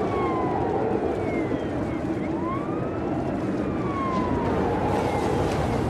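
A siren wailing in slow sweeps, its pitch rising and then falling about once every three seconds, over a heavy, steady rush of tornado wind.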